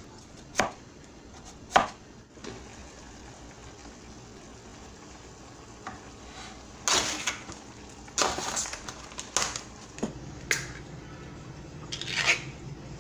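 A cleaver chopping down onto a wooden cutting board: two sharp knocks about a second apart, then a run of irregular knocks and clatters. Near the end, a ring-pull can being pulled open.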